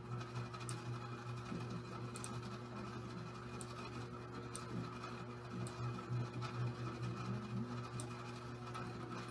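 A handful of faint, sharp computer mouse clicks at uneven intervals over steady low electrical hum and room tone.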